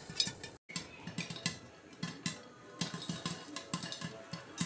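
Popcorn kernels popping in a pot: sharp, irregular pops several times a second. The sound cuts out completely for a moment about half a second in.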